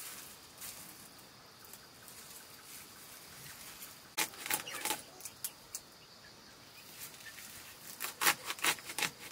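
Crinkling of a plastic bag and rustling of leafy greens as they are handled and pulled apart. The crinkling comes in two short clusters of crackles, about four seconds in and again near the end, over a faint steady hiss.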